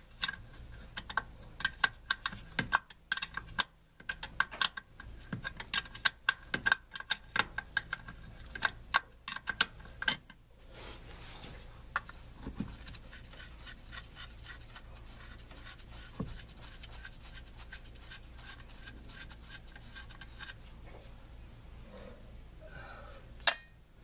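Hand tools clicking and clinking on metal while a brake master cylinder is worked loose: a run of sharp, irregular metallic clicks, two or three a second, for about ten seconds. After that only a few scattered taps over a low steady hum.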